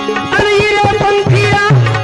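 Gujarati bhajan accompaniment: tabla playing, the bass drum's pitch sliding on its strokes, over a steady drone, with a wavering melodic line held for about a second and a half.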